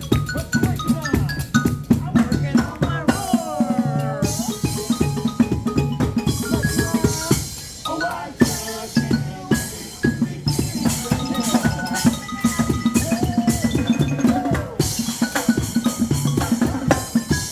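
Live percussion music played on drums and pitched mallet instruments made from reused materials: a busy, steady drum beat under short melodic notes.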